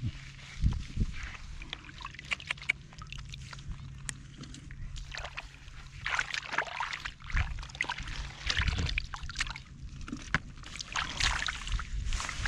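Shallow water sloshing and splashing in irregular bursts, with a few low thumps near the start.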